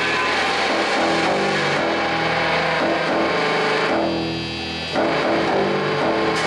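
Live improvised noise music: layered, distorted guitar-like tones and drones run through effects, the notes shifting every half second or so. About four seconds in the upper sound thins out and the level drops a little, then it all comes back suddenly a second later.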